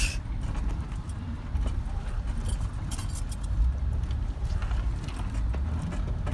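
Jeep running low and steady as it crawls over a rocky trail, heard from inside the cabin, with scattered knocks and rattles as the tyres go over loose stones.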